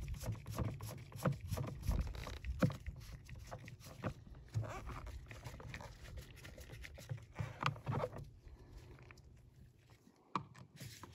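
Screwdriver turning screws into the plastic mechanism cover of a Thetford Aqua Magic IV RV toilet, with scattered small clicks and scrapes of the tool and gloved hands on the plastic housing. Underneath is a low, uneven rumble that fades about eight seconds in.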